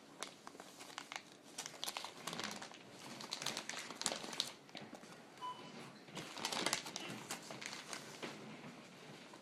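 Plastic packaging crinkling and crackling in irregular bursts as a new replacement laptop LCD screen is handled and unwrapped.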